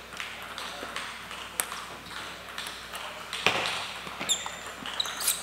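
Table tennis ball clicking sharply off bat and table as a rally starts, a few scattered ticks with the loudest about three and a half seconds in.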